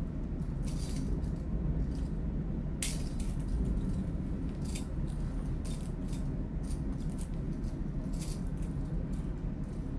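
Light clicks, clinks and rattles of small metal and plastic parts being handled and fitted together on a rod-and-reel rig with a flashlight, about one every second, the sharpest about three seconds in. A steady low hum runs underneath.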